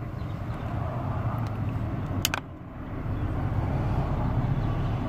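A steady low hum like a running vehicle, with one sharp click a little over two seconds in.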